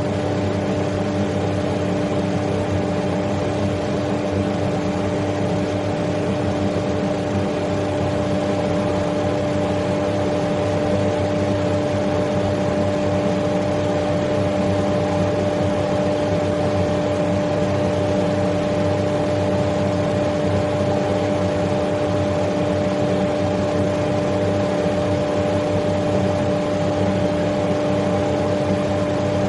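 Extractor fan running steadily: a constant rush of air with a steady two-note hum from the motor.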